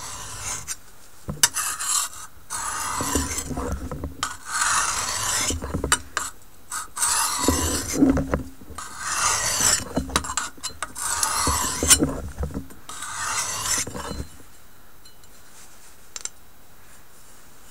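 High-carbon steel knife blade sharpened by hand, drawn in a series of long scraping strokes of a second or so each, about eight in all, stopping about three-quarters of the way in.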